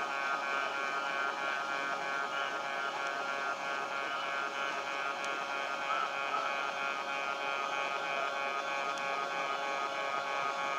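Japanese railway level-crossing alarm ringing steadily: a repeated electronic warning tone with an even, fairly quick beat, sounding as the train approaches the crossing.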